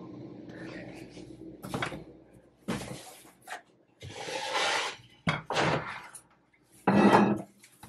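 Kitchenware clattering and knocking as it is lifted off a shelf and handled: a string of separate knocks and rattles, with a longer rattle around the middle and a heavier clunk near the end, the loudest. A low steady hum runs for the first second or so, then stops.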